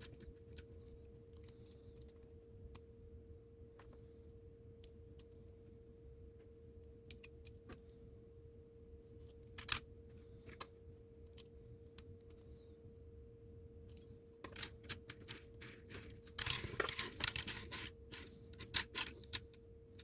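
Small diecast toy car parts being handled on a work surface: scattered light clicks and taps, with a quick run of rattling clicks about three-quarters of the way through, over a steady faint hum.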